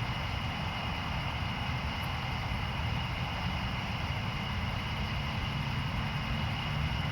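Steady outdoor night ambience: a continuous low rumble under a constant high-pitched drone of insects. No distinct thunderclap.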